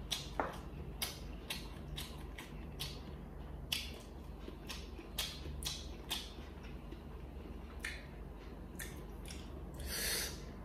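Chopsticks clicking and tapping as they pick through a tray of stir-fried instant noodles and sausage slices: scattered faint clicks over a low steady hum, with a brief hissy rush of mouth noise near the end.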